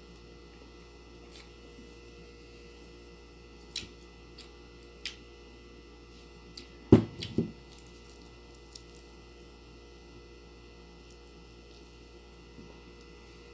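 Quiet eating sounds of rice being handled with the fingers over a steady low hum, with a few light clicks and a louder short knock about seven seconds in as the hot sauce bottle is handled and set down.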